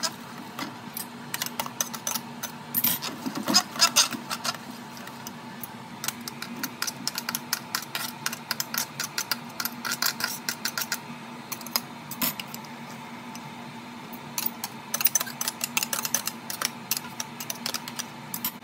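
Hand-cranked stainless steel food mill being turned, its metal blade scraping and clicking against the perforated disc as it presses tomatoes through, in a dense irregular run of scrapes and clicks. Partway through, a knife scrapes tomato pulp off the underside of the plate.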